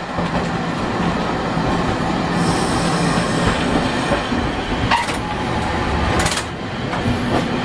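A Nagasaki Electric Tramway streetcar running on street track, heard from aboard: a steady rumble of wheels and motor with a low hum. A high hiss comes in for a couple of seconds, and two short sharp clacks follow, about five and six seconds in.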